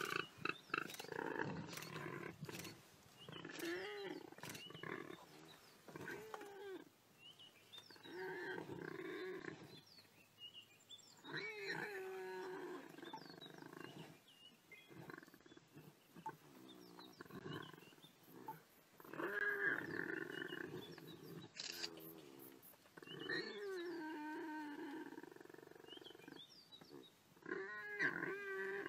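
Repeated harsh animal calls, each about a second long and rising then falling in pitch, with short pauses between them. They come from a leopard and a warthog struggling at the mouth of the warthog's burrow.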